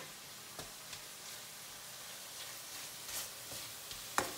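Ground beef sizzling steadily as it browns in a stainless steel skillet. A wooden spoon stirring it gives a few light clicks, the sharpest near the end.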